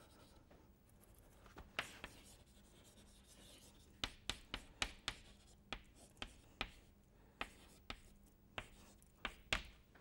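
Chalk writing on a blackboard: faint scratching, then a run of sharp taps and short strokes as words and symbols are chalked up, most of them in the second half.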